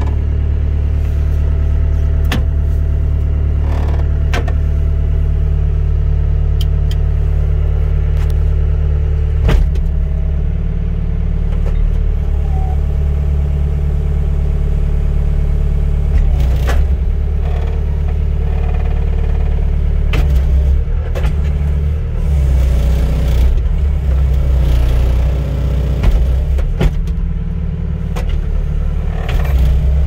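Cat 287C track skid steer's diesel engine running steadily, heard from inside the cab, with scattered clunks and knocks as the hydraulic lift arms are raised and lowered.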